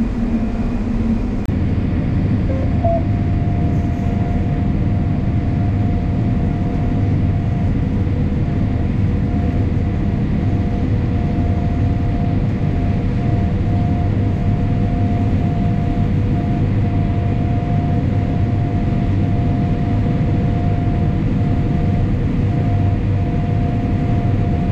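John Deere S540 combine harvester running steadily while harvesting corn: a continuous low drone with a constant whine over it.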